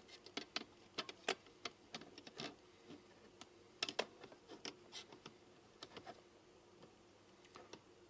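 Quick, irregular light clicks and taps from a hand handling a Trangia kettle and its clip-on digital thermometer, in two flurries with a few more near the end.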